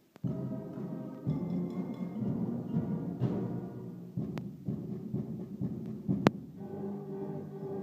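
School band music with trombones and saxophones, joined by percussion played on pots and kitchen utensils. The music comes in after a brief gap at the very start, and two sharp strikes stand out, about four and six seconds in.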